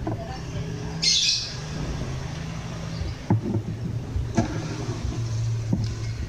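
A motor vehicle engine running steadily in the background, its low hum shifting in pitch, with birds calling over it.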